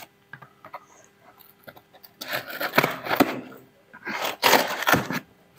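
A large cardboard shipping box being opened by hand: its flaps rubbing and scraping, in two spells of rustling, about two seconds in and again about four seconds in.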